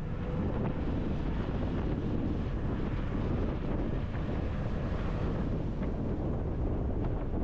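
Wind rushing in through the open window of a moving bus and buffeting the microphone, over the rumble of the bus on the road.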